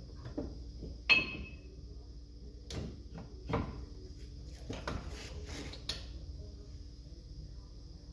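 Metal tools and parts being handled, giving about six scattered knocks and clinks. The loudest, about a second in, is a ringing metallic clink.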